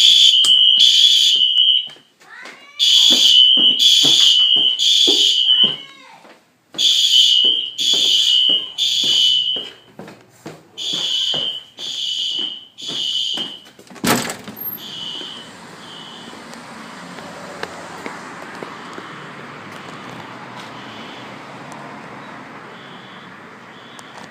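Fire alarm horns sounding the temporal-three evacuation pattern: a high tone in groups of three pulses about a second apart, with a pause between groups. About 14 s in a door shuts with a sharp thump. After it the horn pulses go on faint under a steady outdoor hiss.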